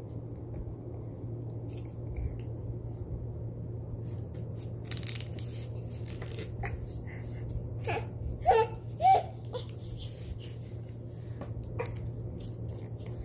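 Baby giving two short, high vocal sounds in quick succession a little past halfway, among soft rustles and scrapes of his hands and feet on a foam play mat. A steady low hum runs underneath.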